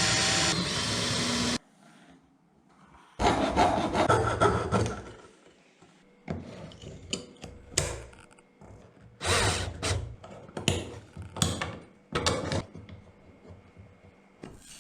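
Wood being sawn and filed: a steady cutting noise cuts off abruptly about a second and a half in. After a short pause come a stretch of rasping and then irregular short rubbing strokes on wood with gaps between them.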